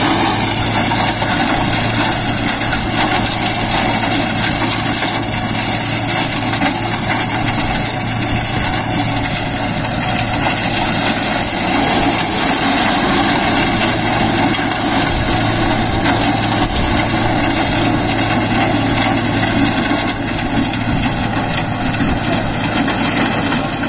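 Deutz-Fahr Agrolux 80 tractor's four-cylinder engine running steadily under load, driving a PTO-powered Maschio Terminator flail shredder that is chopping dry crop residue. The engine hum and the shredder's spinning rotor merge into one dense, unbroken machine noise.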